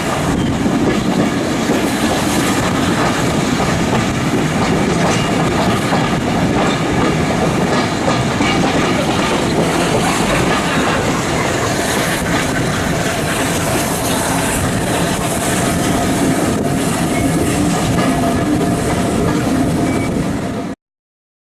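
Heritage railway passenger carriage rolling along the track, heard from on board: a steady rumble of wheels on rail with some clickety-clack. It cuts off suddenly near the end.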